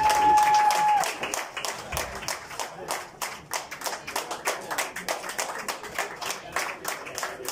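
Audience applauding, many individual hand claps at an uneven rapid pace. A held tone cuts off about a second in.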